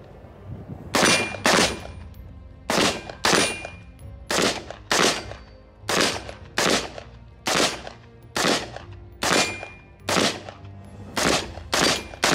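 AR-15 rifle fired semi-automatically: about fourteen sharp shots in an uneven rhythm, often in quick pairs about half a second apart.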